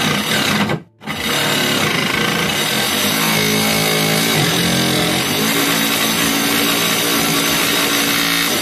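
Circular saw blade on a homemade DC-motor table saw running and cutting up through the 12 mm plywood table top to make its own slot. The noise drops out briefly about a second in, then runs steady.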